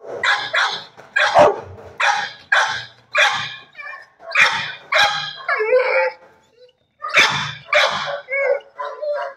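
Dog barking repeatedly, about a dozen sharp barks, with a few short whining cries among them around the middle and near the end.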